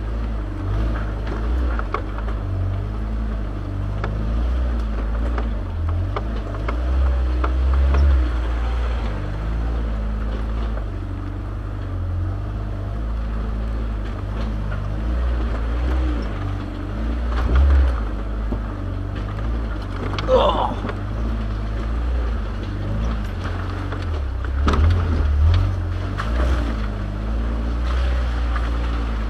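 Off-road vehicle driving slowly over a rough, rutted dirt trail: a steady low engine rumble with knocks and rattles as the body jolts over ruts and rocks. A brief wavering squeak comes about twenty seconds in.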